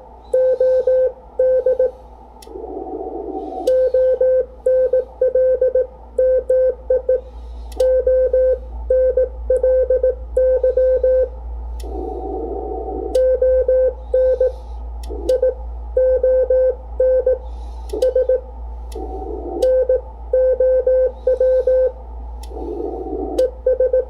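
Morse code sent on a paddle key, heard as the ICOM IC-7300 transceiver's sidetone: a steady beep keyed in rapid dits and dahs, in groups with short pauses. The pauses are filled with the receiver's band hiss, and a few faint clicks come through.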